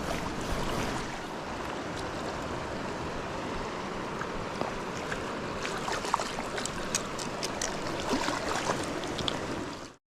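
River water running, with scattered small splashes and ticks from about six seconds in; the sound cuts off suddenly just before the end.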